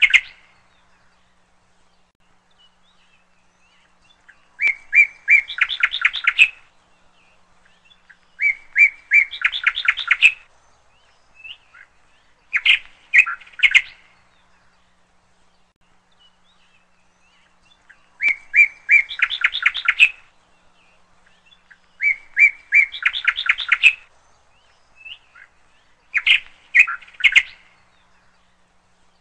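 A songbird singing in short phrases, each a few clear repeated notes that run into a fast trill, about six phrases with pauses of a second or more between them.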